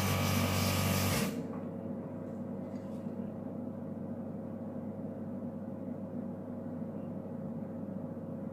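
Airbrush spraying paint, a steady hiss of air that cuts off about a second in. A quieter low steady hum carries on after it.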